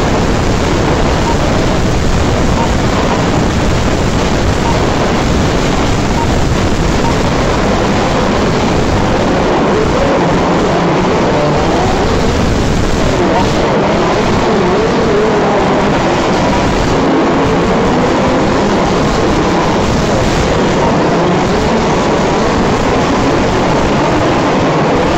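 Several radio-controlled 4WD off-road racing cars running on a dirt track, their motors rising and falling in pitch as they accelerate and brake through the corners.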